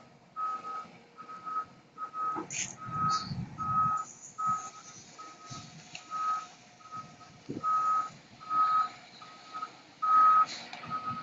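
Fire engine's reversing alarm beeping as the pumper backs up: one steady high tone repeating a little under twice a second, over the truck's low engine rumble, which is loudest a few seconds in.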